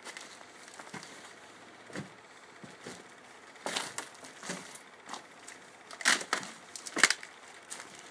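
Footsteps crunching and cracking over rubble and broken wood, about one step a second, the loudest steps in the second half.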